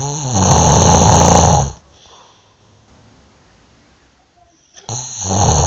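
A sleeping person snoring loudly: two long snores with a low rumble, each just under two seconds, with a quiet breath between them of about three seconds.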